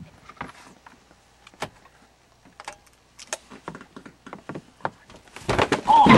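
Closet door being eased open: a sharp click from the latch, then scattered small knocks, rattles and rustling as someone creeps out through the hanging clothes. Near the end a much louder noisy burst starts and keeps going.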